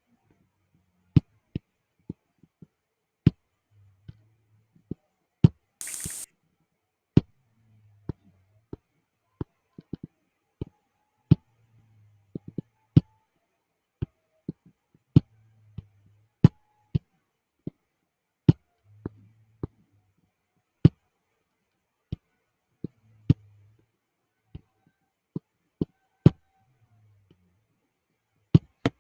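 Sharp single clicks at irregular intervals, roughly one a second, with near silence between them and a short hiss about six seconds in.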